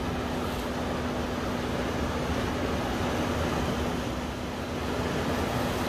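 Sea surf washing over and around coastal rocks: a steady wash of noise that eases slightly about four seconds in. A steady low hum runs under it.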